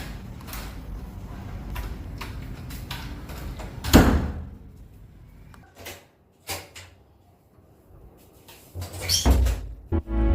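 Packaging being handled and opened close to the microphone: a low rumble of handling, then one sharp knock about four seconds in, a few fainter clicks and knocks, and a near-quiet stretch before more knocks near the end.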